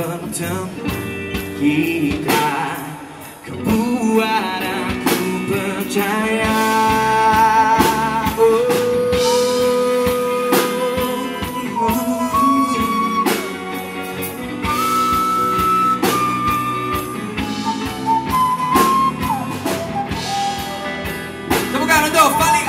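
Live rock band playing a song through a PA: electric guitar and drum kit under a melody of long held notes that steps up and down.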